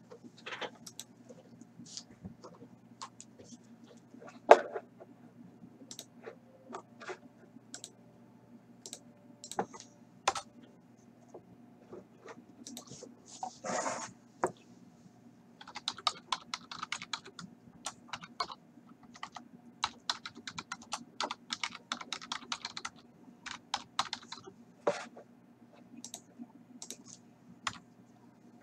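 Typing on a computer keyboard: scattered key clicks, then a fast run of keystrokes past the middle, over a faint steady hum.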